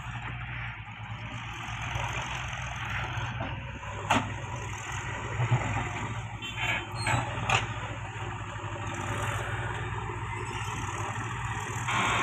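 Diesel engines of a JCB 3DX backhoe loader and a tractor running steadily at a low hum, with a few sharp knocks as the backhoe bucket digs and handles rock and soil.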